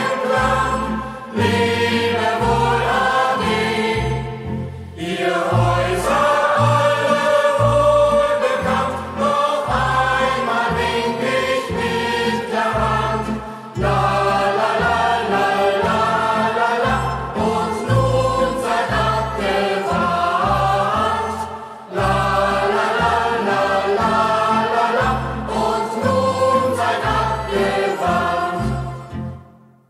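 A youth choir singing a German hiking song in chorus over a steady, beat-keeping bass accompaniment, with brief pauses between verses; the song ends and fades out near the end.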